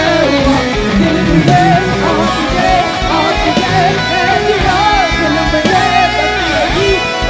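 Live band music, with guitar over a steady bass line and a melodic lead that bends and wavers in pitch.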